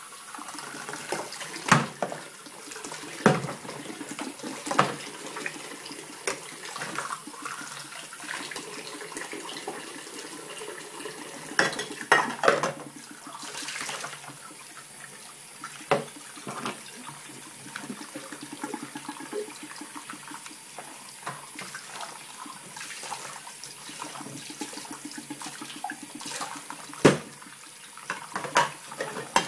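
Kitchen tap running steadily into a pot of soapy water while dishes are rinsed under it, with clinks and knocks of the dishes against the pot and sink every few seconds.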